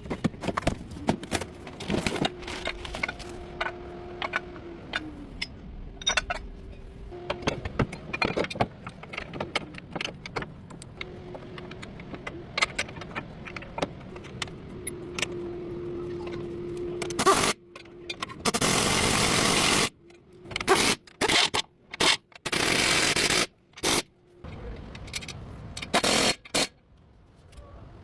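Metal hand tools clinking, knocking and scraping against car suspension parts, followed in the last third by several loud bursts of hissing noise that cut in and out abruptly.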